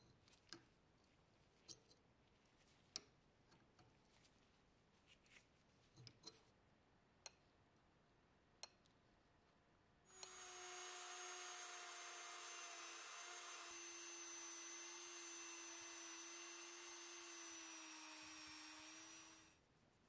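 A few scattered light clicks of metal hand-tool work on brass. About halfway through, a small electric power tool starts and runs steadily at one pitch with a thin high whine, then stops just before the end.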